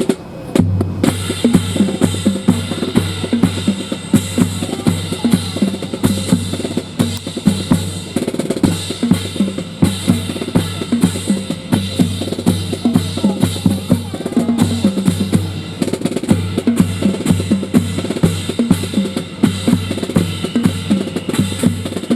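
Drum-led music with bass drum and snare beats in a steady, driving rhythm, starting just under a second in.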